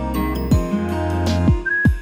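Background music with a steady beat and a whistle-like melody line coming in near the end.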